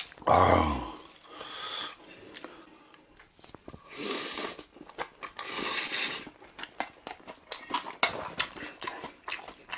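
Close-up eating sounds: chewing and mouth noises, with a wooden spoon scraping and clicking against a brass bowl of bibimbap. A short, low grunt comes near the start.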